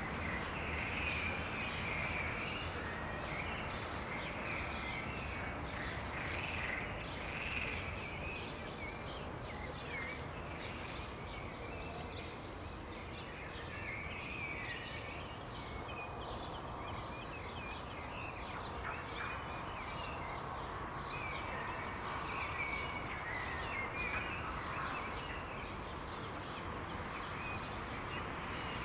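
Many birds chirping and calling in a dawn chorus over a steady low background hum, with a thin high tone coming and going.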